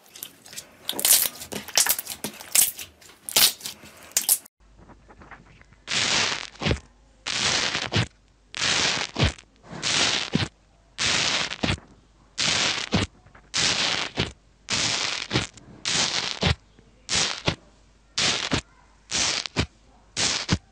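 Clear glitter slime squeezed in the hands, with irregular crackly squishes. Then foamy mint-green slime pressed over and over with a small metal tool: a crackling squish of popping air bubbles about every 0.7 s.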